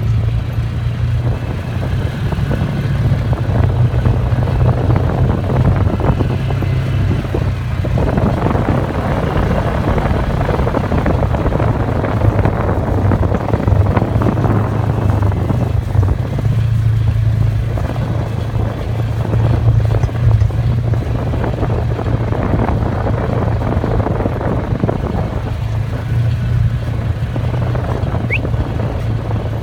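A small vehicle's engine running at a steady speed with a constant low hum, under rough wind noise.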